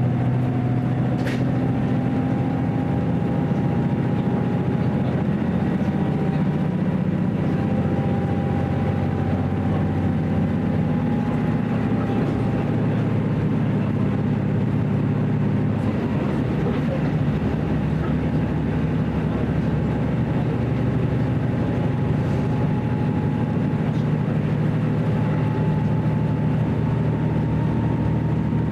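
Running sound inside a JR Central KiHa 75 diesel railcar under way: a steady diesel engine drone over the rumble of wheels on rail, with a faint whine that creeps up in pitch.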